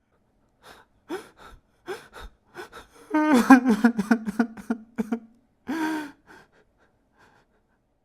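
A man crying: short gasping, sniffling breaths, then a long wavering whimpering sob about three seconds in and a shorter sob near six seconds, after which it stops.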